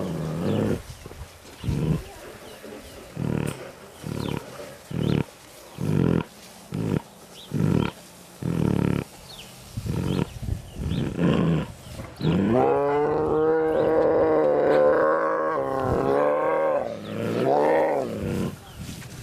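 Tiger vocalizing at close range through cage bars: a string of short sounds about once a second, then about twelve seconds in a long drawn-out call lasting several seconds, followed by a shorter call near the end.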